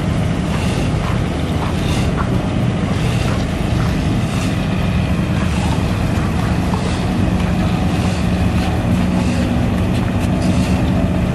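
An engine running steadily at constant speed, a loud low drone, with faint light knocks of gear being handled.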